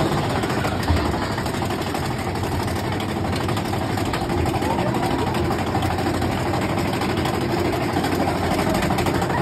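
Big Thunder Mountain Railroad mine-train roller coaster running along its track: a steady rumble with rushing wind noise.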